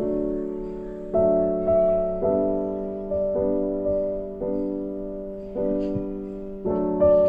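Background music: slow chords struck about once a second, each fading before the next.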